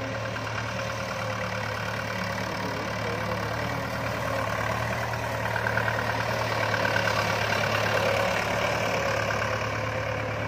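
Diesel farm tractor engine running at a low, steady speed as the tractor drives slowly over a layer of pearl millet heads to thresh them. It grows a little louder for a few seconds in the middle as the tractor comes close.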